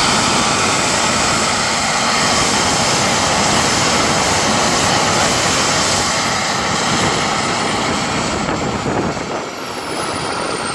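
Model jet turbine of about 26 kg thrust running at high power: a steady roar with a high whine. Near the end the whine falls in pitch and the roar eases a little as the turbine throttles back.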